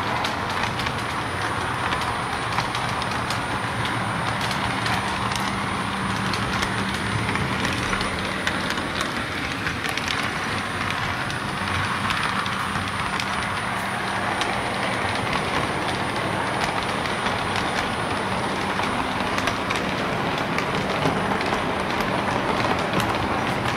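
O-gauge model train running along the layout track, heard close up from on board: a steady motor hum and rolling noise with many light clicks.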